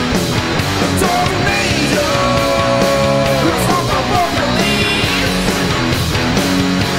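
Rock band playing a loud song with a steady drum beat, over which a singer holds long notes that bend at their ends.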